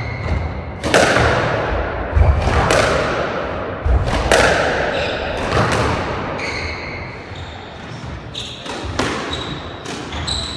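Squash rally: the ball cracking off rackets and the court walls, sharp echoing strikes about every second or so, with short squeaks of court shoes on the wooden floor.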